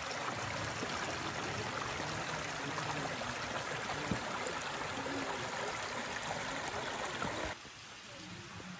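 Steady rushing of falling and flowing water. It drops off abruptly about seven and a half seconds in to a quieter hiss.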